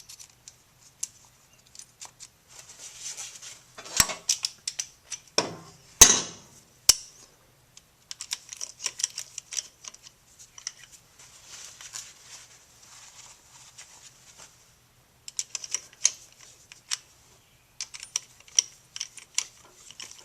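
Small metal parts and hand tools clicking and clinking irregularly as nuts are fitted onto the studs of the seal housing, with two louder metallic knocks about 4 and 6 seconds in.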